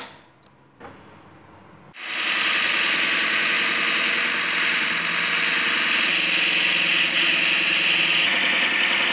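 A short knock near the start, then from about two seconds in the steady, loud rasp of a large metal twist drill boring into a spinning maple blank on a wood lathe.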